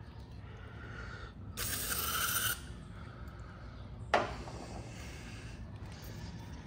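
An aerosol can of starting fluid sprayed in one hiss of about a second into the carburetor of a vintage chainsaw, followed about two seconds later by a single sharp knock as the saw is handled.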